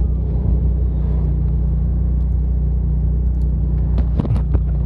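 Steady low engine and road drone heard from inside the cabin of a turbocharged Ford Probe GT cruising at an even speed, with a few short sharp knocks about four seconds in.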